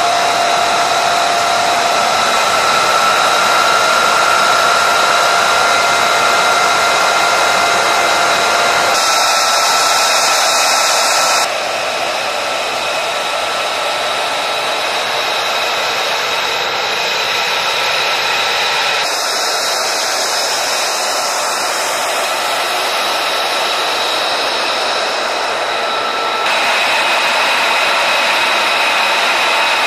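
F-35A jet engine running at idle on the ground: a loud, steady rushing hiss with high whining tones over it. The whine and hiss change abruptly several times.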